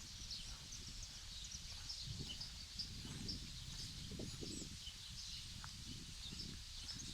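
Footsteps on sand under a low wind rumble, with many small, high chirps scattered throughout.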